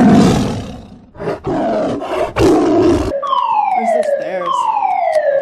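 Building fire alarm sounding. A few loud, harsh blasts of noise come first. About three seconds in, the evacuation signal starts: a tone falling steadily in pitch, heard twice, each sweep lasting about a second. This is the falling-tone evacuation signal of German-standard (DIN 33404) alarm sounders, which comes before the spoken evacuation message.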